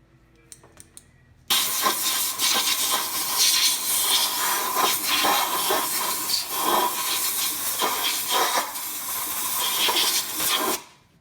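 Compressed-air blow gun hissing in one long blast of about nine seconds. It starts suddenly about a second and a half in and cuts off near the end, blowing rust and crud out of a sway-bar disconnect housing.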